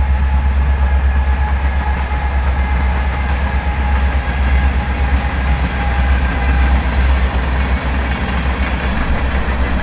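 Train passing, its railcars rolling by with a steady heavy rumble and faint steady tones above it.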